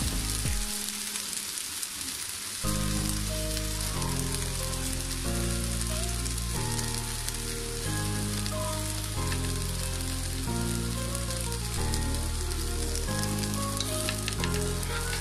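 Kalijira rice frying in hot oil in a pot, a steady sizzle, with a spatula stirring through it near the end. Background music with low notes that change every second or so plays under it.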